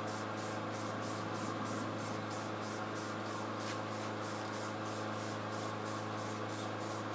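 Aerosol can of John Deere Construction yellow spray paint hissing steadily as paint is sprayed onto a steel snow plow blade.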